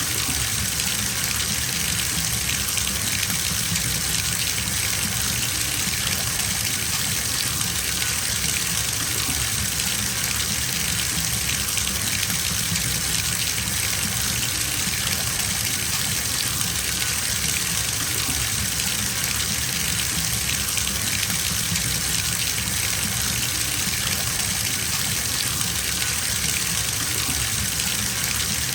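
Bathtub filling from the tap: water gushing steadily into the tub, a constant rushing with no changes.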